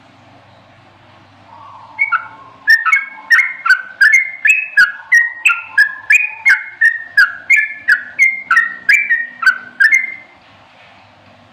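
Yellow-vented bulbul (trucukan) singing a rapid, continuous run of short sliding whistled notes, about two to three a second, starting about two seconds in and stopping about two seconds before the end.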